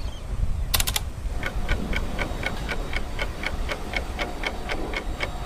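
Clock ticking sound effect, about four even ticks a second, starting about a second and a half in. It is preceded by a quick rattle of sharp clicks just under a second in.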